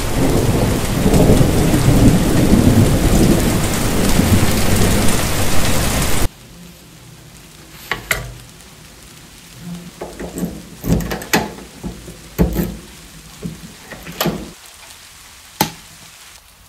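Heavy rain pours loudly with a deep low rumble, then cuts off abruptly about six seconds in. Quiet scattered knocks and clicks of hands handling fittings follow. Near the end comes one sharp click of a wall rocker light switch being pressed.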